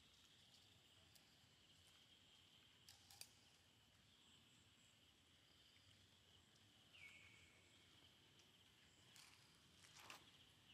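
Near silence with a faint, steady, high insect drone and a few soft clicks.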